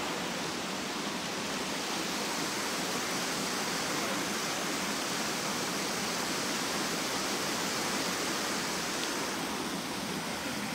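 Shallow river water rushing steadily over a stony bed, an even hiss.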